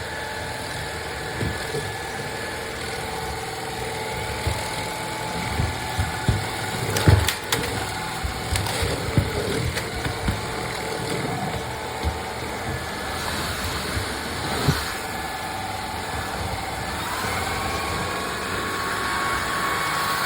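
Cordless stick vacuum running with a steady motor whine, with scattered knocks and crackles as debris is picked up. Near the end a higher motor tone comes in.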